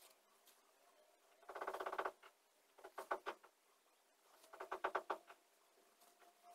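Yarn drawn through knitted fabric with a sewing needle during whip-stitching, making short rasping squeaks in four separate pulls, the last two breaking into quick clicks.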